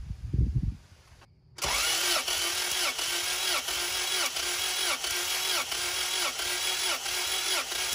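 A Honda H22 four-cylinder engine being cranked over by its starter motor for a compression test, without starting. The starter's whine begins about a second and a half in and dips in pitch in a steady rhythm, about one and a half times a second.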